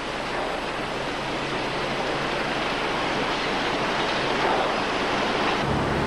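Printing press running: a steady, even rushing noise with a faint low hum, growing slightly louder. Near the end the low hum gives way to a deeper drone.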